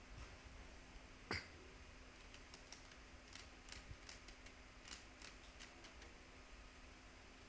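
Near silence with faint, scattered computer keyboard clicks: one sharper click about a second in, then a run of light taps in the middle.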